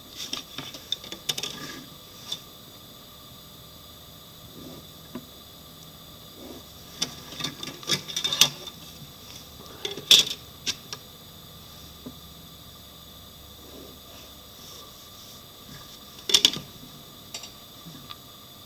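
Drawing instruments being used on paper on a drawing board: irregular taps, clicks and short scrapes in scattered clusters, the loudest about ten seconds in, over a faint steady hum.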